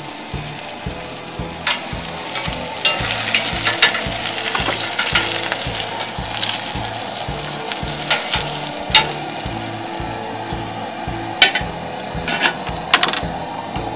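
Battered walleye fillets sizzling in hot oil in a cast-iron skillet, with sharp metal clicks of tongs against the pan as the pieces are turned and lifted, several times.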